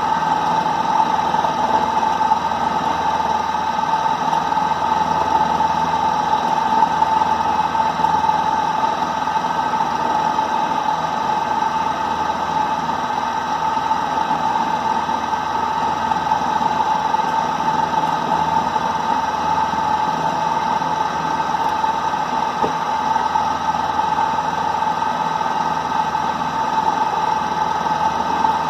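Klutch mini benchtop milling machine running steadily, its spindle motor giving a constant hum with a strong steady whine.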